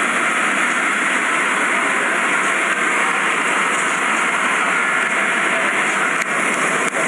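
Steady, loud rushing hiss of airliner cabin noise, with a faint click about six seconds in.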